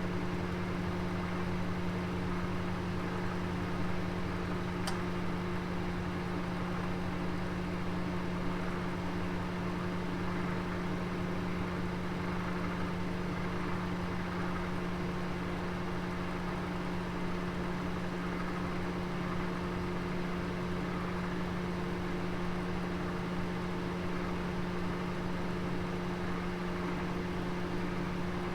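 Oven running: a steady low hum over an even hiss, with one faint tick about five seconds in.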